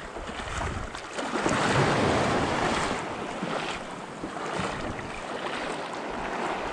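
Small sea waves washing over a rocky, pebbly shoreline in a steady rush, swelling briefly about a second and a half in.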